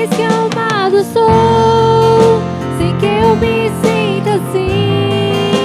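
Portuguese Christian worship song playing: a melodic lead line gliding between held notes over sustained chords, between sung verses.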